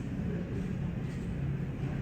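Steady low engine rumble with no sudden events.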